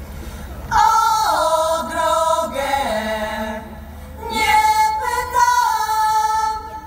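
Women's folk choir singing: a first phrase beginning about a second in, a short pause, then a second phrase ending on a long held note.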